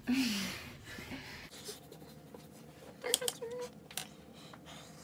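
Soft clicks and light scratching of makeup tools (a mascara wand and a lip brush) being worked on the face, after a short breathy voice sound at the start.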